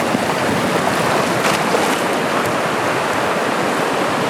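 Ocean surf washing steadily at the shoreline, with a brief louder hiss about a second and a half in.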